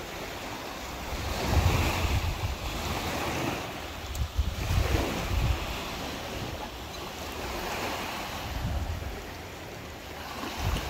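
Small sea waves washing in on sand and rocks, swelling and falling away every few seconds, with wind gusting on the microphone as a low rumble.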